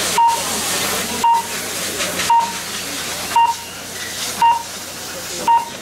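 Six short electronic beeps from a race timing system, one a second, counting down to a race start, over a steady hiss.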